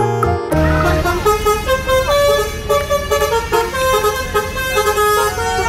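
A short music jingle ends about half a second in. It gives way to a bus's multi-tone horn playing a stepping melody of steady notes over the engine and yard noise of a bus terminal.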